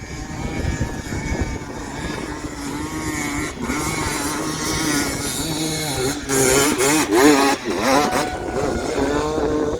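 Dirt bike engine running and revving, its pitch rising and falling repeatedly, with sharper revs in the second half.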